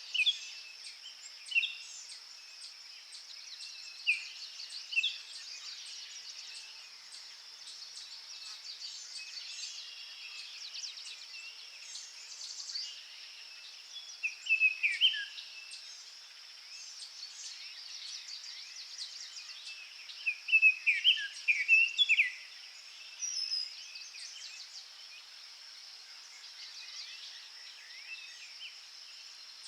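Small garden birds calling and chirping: short, high calls scattered throughout, with louder bursts of calls about halfway through and again around two-thirds of the way through, over a steady high hiss.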